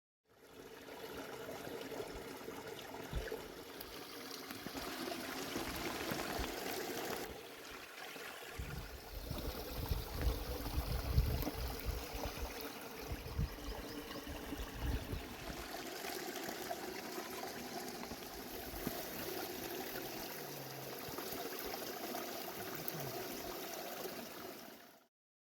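Steady rush of running water from a stream, with some low rumbles in the middle.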